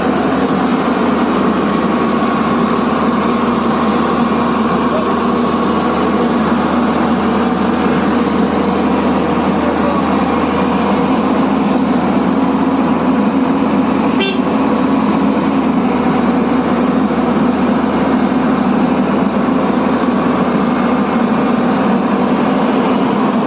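Bobcat skid-steer loader's diesel engine running steadily at a constant speed, with one brief click about fourteen seconds in.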